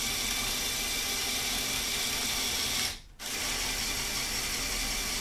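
LEGO Technic 8043 excavator's Power Functions electric motor and gear train whirring steadily while it drives the bucket under remote control. It stops for a moment about three seconds in, then starts again.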